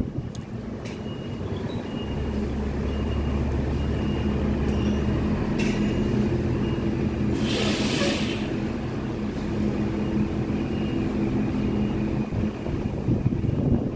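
Steady low hum of a running engine, with a short loud hiss about eight seconds in.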